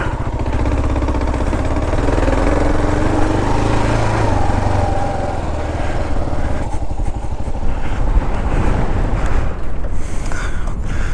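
Kawasaki KLR 650's single-cylinder engine running as the dual-sport motorcycle rides a dirt trail. The pitch rises as it accelerates in the first few seconds, then turns rougher and more uneven, with scattered knocks.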